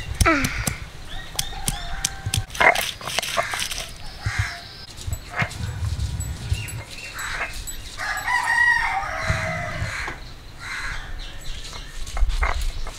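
A rooster crowing once, about eight seconds in, amid scattered short calls and sharp clicks.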